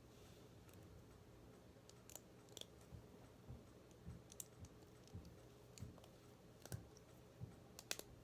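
Faint, irregular clicks of small Lego plates being handled and pressed onto a Lego piece.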